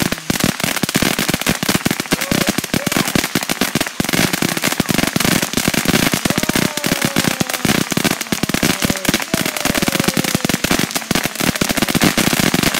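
Ground firework fountain crackling: a dense, rapid run of small sharp pops that goes on without a break.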